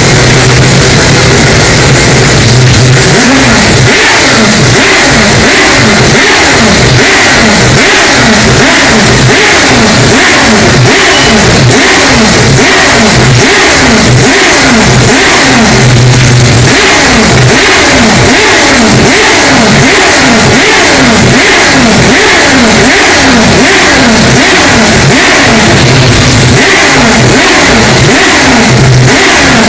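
Mazda 787B's four-rotor R26B rotary engine revving, its pitch rising and falling again and again with a few steadier held stretches. It is very loud and distorted.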